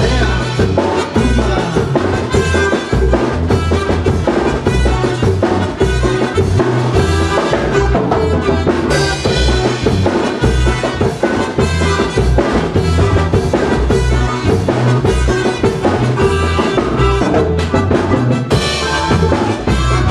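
A band playing a chilena mixteca, with trumpets and brass over drums and a steady bass-drum beat.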